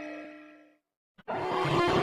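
TV channel ident music fading out, a short gap of silence with a faint click, then the next ident's music starting abruptly about a second and a quarter in.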